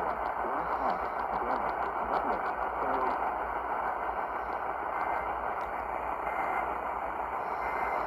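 Radio receiver hissing with static from a weakly received station, with a faint voice under the noise for the first few seconds.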